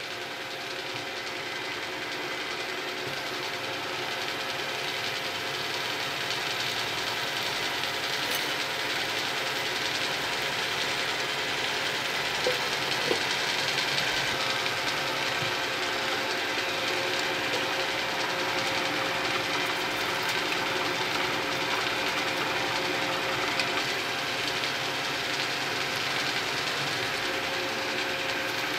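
A machine spindle running while a long, thin drill bit bores into a steel bar. It makes a steady mechanical hum with several steady whining tones, growing slightly louder over the first few seconds.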